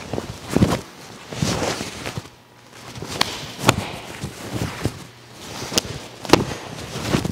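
Bare feet stepping and landing on foam mats during a fast taekwondo form, with a handful of sharp snaps as strikes and kicks are thrown.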